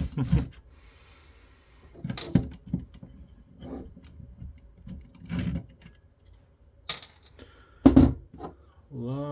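Screwdriver work on screws holding an amplifier board inside a subwoofer cabinet: scattered clicks and knocks of the tool and handled parts, with a louder knock about eight seconds in.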